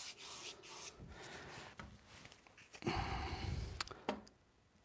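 Faint scrubbing of a paintbrush rubbing acrylic paint across canvas, followed about three seconds in by a short, louder noise that ends in a click.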